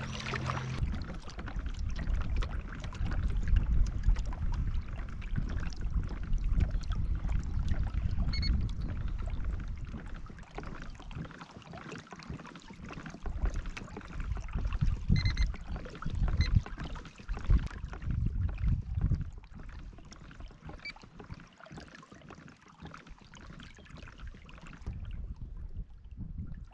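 Wind buffeting the microphone in gusts, with water lapping and splashing against a kayak hull. The gusts are heaviest for the first ten seconds or so, then come in shorter bursts.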